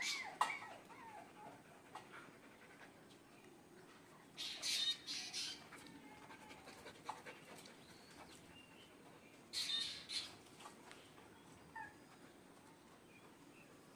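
German shepherd puppy whining and yelping in short high-pitched bursts a few seconds apart.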